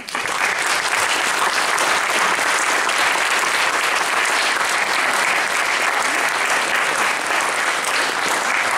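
Audience applauding, starting suddenly and holding steady and loud.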